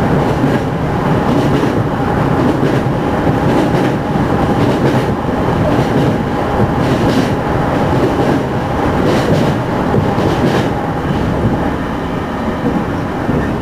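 Running noise inside a JR Central 211 series electric motor car at steady speed: dense rumble with a steady tone and occasional short clacks from the rails. The car is one known for an unusually loud abnormal running noise.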